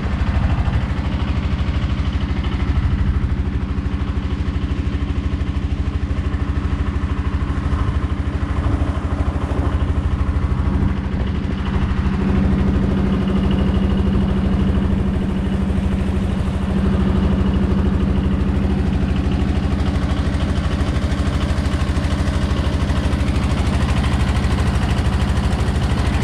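Boat engine running steadily: a continuous low throbbing note with no let-up.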